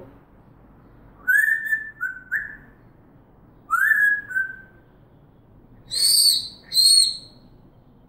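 African grey parrot whistling: two short phrases of clear whistles that swoop up and then step down, followed near the end by two shorter, higher-pitched whistle notes.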